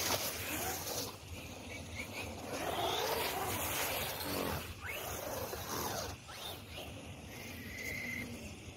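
Brushless electric motor of an HSP 94701 Wolverine 1/10-scale RC monster truck whining, its pitch rising and falling several times with the throttle, over the hiss of tyres spraying through standing water.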